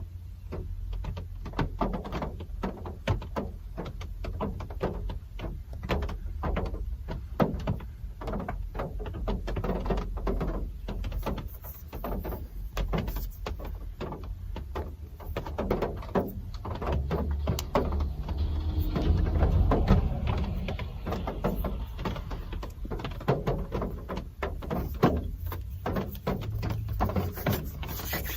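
Real rain falling, heard as a steady low rumble under a dense, irregular patter of drops and taps, swelling a little just past the middle.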